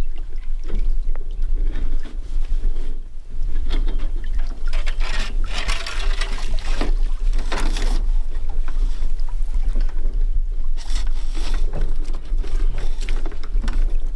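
Wind buffeting the microphone in a constant low rumble, with water sloshing and splashing in irregular rushes.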